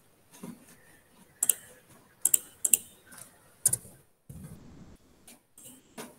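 Irregular clicks from a computer mouse and keyboard, about nine sharp clicks, some in quick pairs, with a brief rustle a little past the middle.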